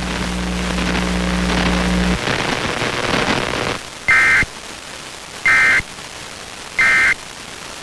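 Off-air FM radio hiss and static with a low steady hum for the first two seconds, then three short bursts of Emergency Alert System end-of-message data tones, evenly spaced about 1.3 s apart, signalling the end of the required monthly test.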